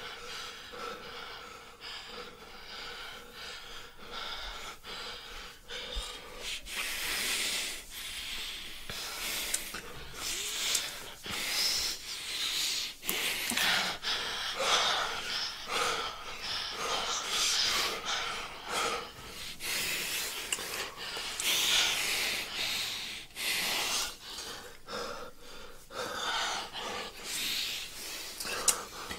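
Uneven human breathing: a run of noisy breaths, each up to about a second long, sparser for the first few seconds and then coming louder and closer together.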